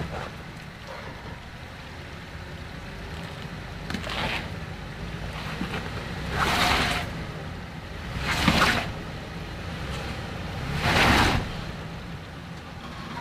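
Toyota 4Runner crawling through a rocky off-road obstacle: a steady low engine rumble, broken by four short bursts of rushing, crunching noise as the truck works over the terrain.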